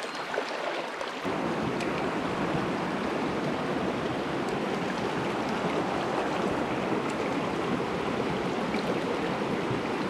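Mountain stream flowing over rocks: a steady rush of water noise that grows louder about a second in.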